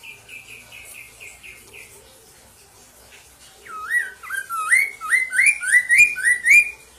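Caged poksay mandarin laughingthrush singing: a soft run of short repeated chirps, then from about three and a half seconds in a loud series of rising whistled notes, roughly three a second, that stops shortly before the end.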